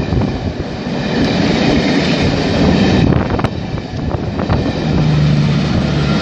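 A rake of Mk2 and Mk1 passenger coaches passing at speed: steady rolling wheel noise with a few sharp clicks of wheels over rail joints. About five seconds in, a steady low engine hum comes in as the rear Class 66 diesel locomotive approaches.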